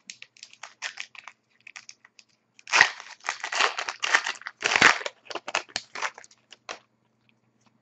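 A wrapper of a 2011-12 Panini Contenders hockey card pack being torn open and crinkled. Light crackles at first, then louder crinkling about three seconds in and again near five seconds.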